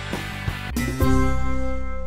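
Background music with a steady beat that ends about a second in on a loud held chord, which rings on.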